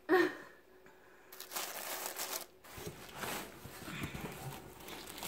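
A short knock right at the start, then cardboard and wrapping paper rustling and crinkling as a subscription box and its wrapped contents are handled.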